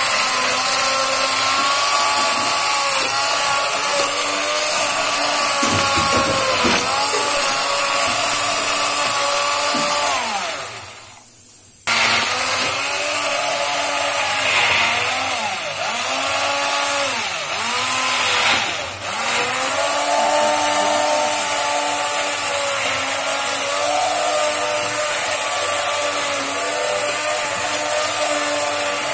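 Electric hand blender running in a steel pot, pureeing thick boiled raw-mango pulp with sugar and spices. Its motor pitch sags and recovers again and again as the blade bogs down in the pulp. About ten seconds in it winds down and stops, then starts again abruptly about a second later.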